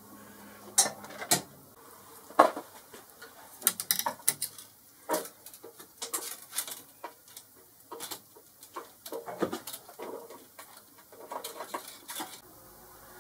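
T-link drive belt being pushed by hand down through a Boxford lathe headstock, its links clicking and clattering against the metal casting in irregular short bursts.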